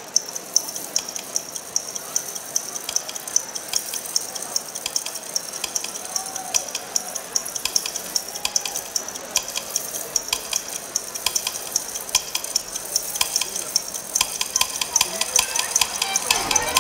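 Dense, irregular crackling: many sharp, high clicks a second, like a sizzle, getting a little busier near the end.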